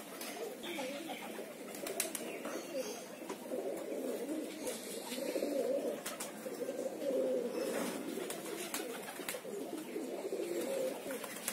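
A flock of domestic pigeons cooing continuously, many calls overlapping, with a few sharp clicks.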